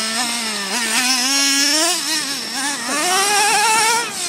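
Radio-controlled car's small engine running and revving, its pitch steady for about a second, then rising and falling twice as the throttle is worked.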